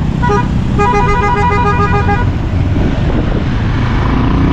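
A vehicle horn beeping in a rapid run of short, evenly spaced toots, about six a second for over a second, after a brief toot at the start. Underneath runs the steady engine and wind noise of riding on a motorcycle in traffic.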